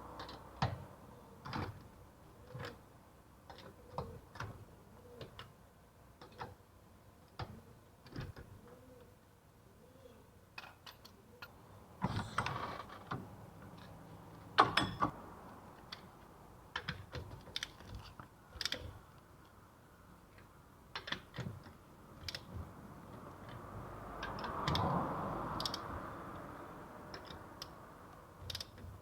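Hand tools clicking and knocking on metal parts during work on a car's rear brake caliper, in irregular strokes with two louder knocks about twelve and fifteen seconds in. Near the end a longer noise swells and fades.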